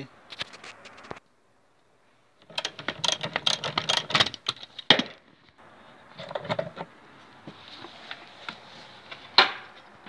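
Quick metallic clicking and rattling of a hand wrench and loose trim parts at a car seat-belt anchor bolt as it is being undone. The clicks come in bursts, the busiest a few seconds in, with one sharp click near the end; the sound cuts out entirely for about a second early on.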